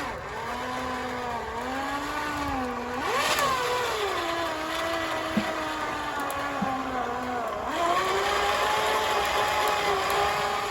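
An engine running, its speed rising and falling. It revs up briefly about three seconds in, then settles at a higher, steady speed near the end.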